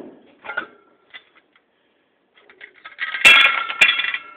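Pressed-steel ceiling fan housing clattering and ringing as it is pulled off and dropped as scrap steel, about three seconds in, after a few light knocks.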